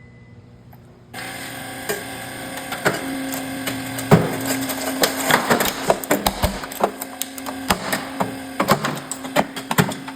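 Running microwave oven being crushed in a 150-ton hydraulic press. About a second in, a loud steady hum starts, and over it come many sharp cracks, snaps and crunches as the casing and insides give way under the press.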